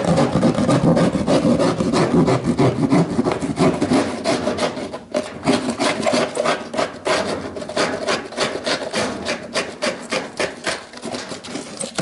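Hand drywall saw cutting through gypsum board, a continuous run of rapid back-and-forth rasping strokes.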